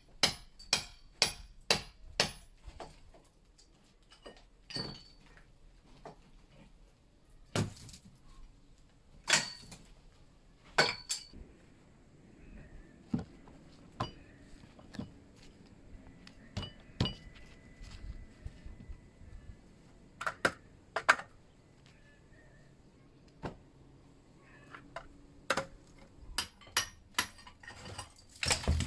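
Scattered sharp clinks and knocks of hard objects being handled, in quick runs of several a second near the start and end and more sparsely in between.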